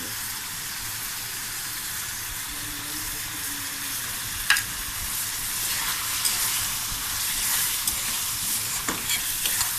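Thick eel-fish curry sizzling in oil in a pan as it reduces. A few sharp clicks of a stirring spoon against the pan come through, the loudest about halfway through.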